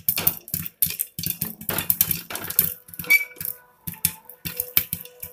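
Popcorn kernels clattering and popping inside a pressure cooker that is being shaken on the flame: a fast, irregular run of sharp clicks and knocks against the metal pot.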